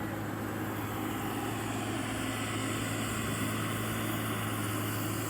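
Diesel engine of heavy earthmoving machinery running steadily, a low even drone that does not change.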